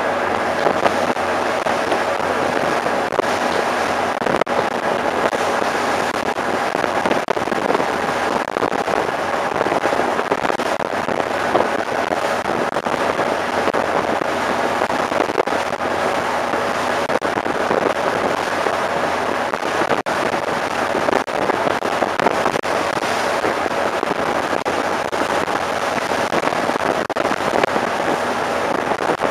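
Steady loud rushing noise of wind and a ship's engine on an open deck at sea, with a constant crackle of wind buffeting the microphone and a faint engine hum running under it.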